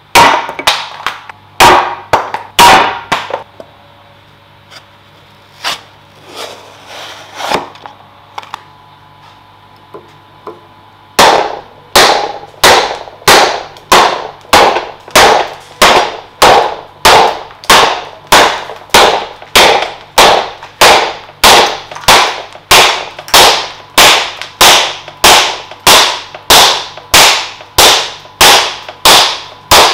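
Estwing axe chopping into pine boards. A few hard strikes come at first, then a quieter spell with scattered knocks. From about a third of the way in, a steady run of chops follows, nearly two a second, each a sharp crack of the steel blade biting the wood.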